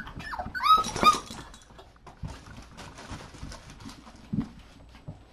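Young puppies whining in a few short, high-pitched arching cries about a second in, frustrated at not being able to reach their mother to nurse. After that come fainter scuffles and soft taps of paws on the floor.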